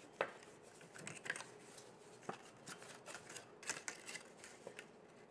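Stiff cardstock being folded along its score lines and handled: faint, scattered rustles and ticks of paper, the sharpest just after the start.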